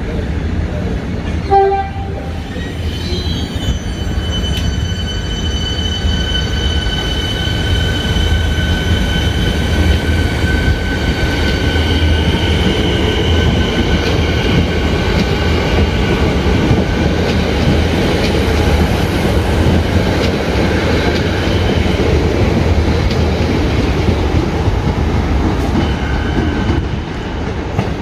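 X'Trapolis electric suburban train running past on the rails: a continuous rumble with a steady high whine through most of the pass. There is a brief sharp knock about a second and a half in.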